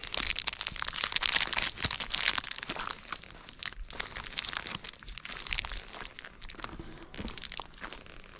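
A hiker's footsteps crunching on a forest trail, with steady crackling under each step; loudest for the first few seconds, then a little softer.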